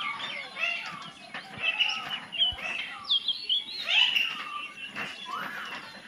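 A flock of parakeets calling: many short, squeaky chirps and chattering calls overlapping, rising and falling quickly in pitch.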